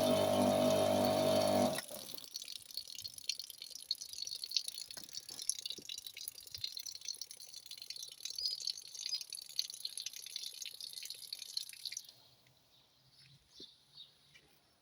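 Kärcher K4 pressure washer's electric motor and pump running with a steady hum, then shut off suddenly about two seconds in. Water goes on hissing and dripping with scattered ticks for about ten seconds after, then dies away.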